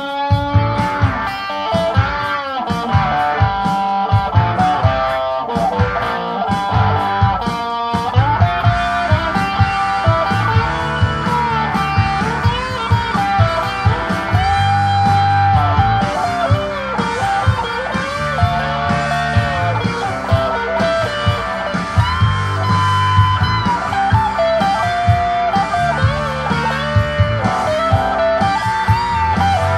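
Blues lead on a 2005 Gibson SG Standard electric guitar played through a 2013 Vox AC4 TV amp: picked single-note runs with string bends that slide up and back down in pitch.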